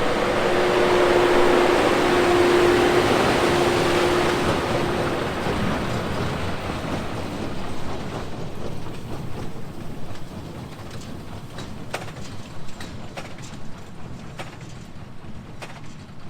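John Deere 6250R tractor and Krone Big Pack 890 large square baler working close by, a dense mechanical noise with a steady whine through it. From about five seconds in the whine stops and the machinery fades to a lower level, with scattered faint clicks.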